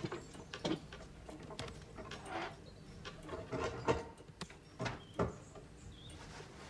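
Hand embroidery hook pricking and pulling thread through beaded cloth stretched taut on an embroidery frame: irregular light taps and scrapes, about two a second.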